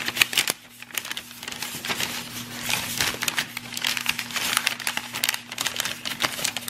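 White packing paper being unrolled and handled by hand, crinkling and crackling irregularly throughout.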